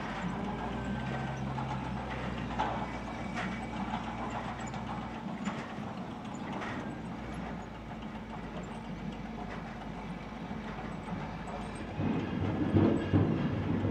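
Volvo wheel loader's diesel engine running steadily while logs are handled, with scattered knocks and clunks and a louder burst of clattering near the end.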